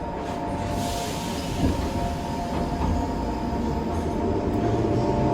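Metro train running: a steady rumble with a constant high electric whine over it, growing a little louder near the end.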